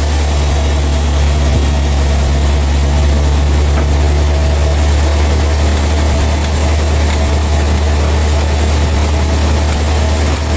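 Heavy engine running steadily at an even speed, a deep low drone with a faint steady high whine above it.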